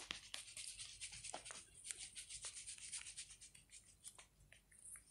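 A small fidget toy worked close to the microphone, giving a faint, rapid, irregular run of scratchy clicks: a really weird sound.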